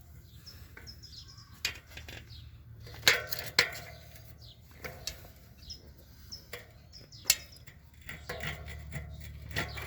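Scattered clicks and knocks from handling a bicycle wheel while an inner tube is worked into the tire and its valve lined up with the rim's valve hole; the sharpest knocks come about three seconds in and again past the middle.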